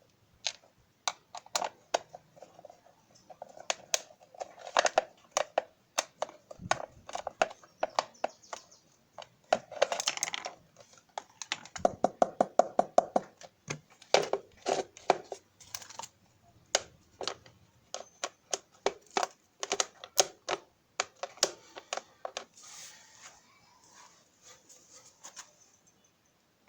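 Irregular clicks, taps and light knocks of small plastic and metal parts of an egg beater being handled during a repair, with a quick rattling run of clicks about halfway through.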